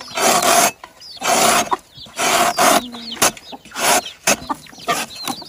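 Chickens squawking in several loud, harsh bursts, with high, thin peeping calls among them.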